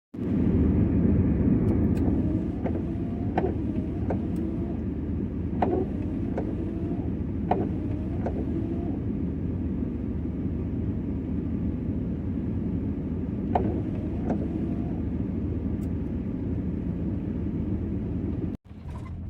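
Steady low rumble of a vehicle on the move, with a few scattered sharp clicks.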